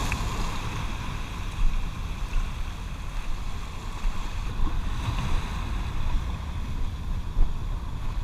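Strong surf surging and washing over a rocky reef shore, with wind buffeting the microphone in a steady low rumble.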